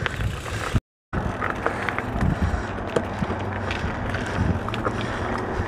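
Mountain bike rolling along a dirt trail: tyre noise with frequent clicks and rattles, and wind on the microphone. About a second in the sound cuts out completely for a moment.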